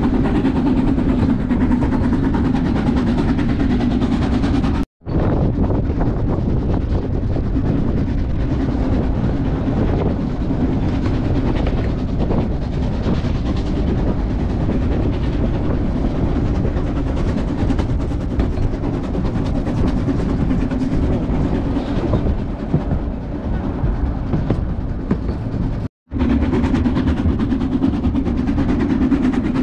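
Narrow-gauge steam train running on the rails: a steady rolling rumble with the clatter of the carriages. The sound cuts out briefly twice, about five seconds in and near the end.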